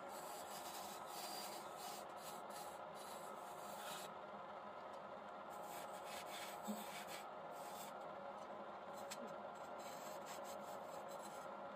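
Wood lathe running with a hand-held scraping tool held against the spinning wooden vase: a steady running hum with an uneven scraping hiss from the cut. A single short knock about two-thirds of the way through.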